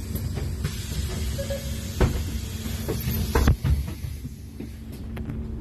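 Iveco Urbanway 18M city bus doors closing: a long hiss of air, then two knocks as the door leaves shut, about two and three and a half seconds in. The bus's diesel engine idles steadily underneath.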